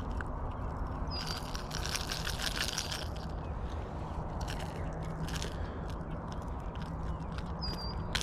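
Light clicking and scraping of hands working a stubborn popper lure free from a bass's mouth, over a steady outdoor hiss. A bird chirps briefly about a second in and again near the end.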